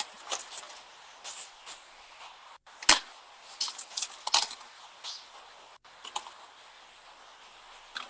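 Eating sounds: scattered short clicks and taps, with a sharp knock about three seconds in and a cluster of clicks soon after.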